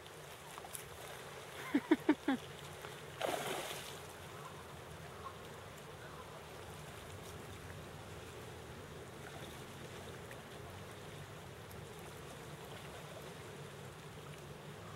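Shallow river running over a gravel riffle, a steady rushing hiss. About two seconds in come four short, sharp pitched calls in quick succession, then a brief louder rush of noise a second later.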